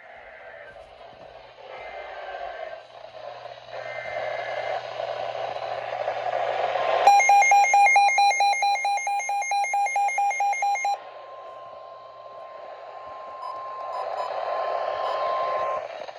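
NOAA Weather Radio alert over a hissing radio signal: three short faint data-like tones, then a loud, rapidly warbling electronic alarm for about four seconds starting about seven seconds in, then a steady single-pitch alert tone, which signals that a warning is about to be read.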